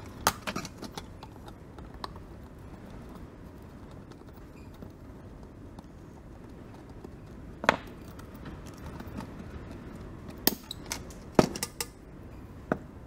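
Stainless-steel cylinder and metal cap being handled at a workbench: a few scattered sharp metallic clicks and knocks, over a steady low background rumble.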